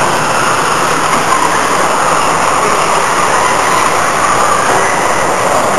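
Electric radio-controlled stock-class stadium trucks racing on the track: a steady, loud whir of their small motors and gears.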